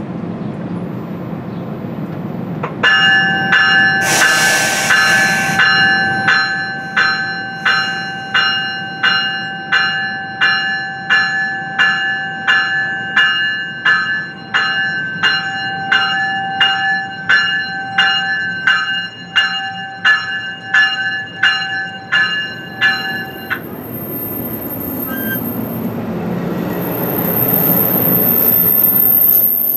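A railroad warning bell rings in steady, evenly spaced strikes, about one and a half a second, for some twenty seconds and then stops. Near the end a train's rumble builds, with a high steady wheel squeal.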